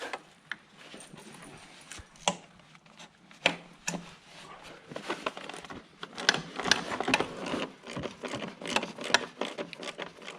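Ratchet wrench with a 10 mm socket clicking as the chain case cover bolts are backed out. A few separate clicks come first, then quicker runs of clicking from about halfway through.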